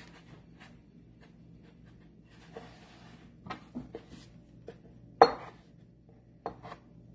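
Soft rubbing of gnocchi dough being rolled by hand on a wooden board, then a metal bench scraper chopping down through the dough rope onto the board: two sharp knocks a little over a second apart, the first the loudest.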